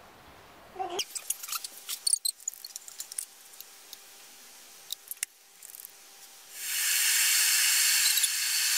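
Clicks and light clatter as a stainless-steel electric kettle's lid and a probe thermometer are handled. About two-thirds of the way in, the kettle's steady hiss of water heating starts and stays loud.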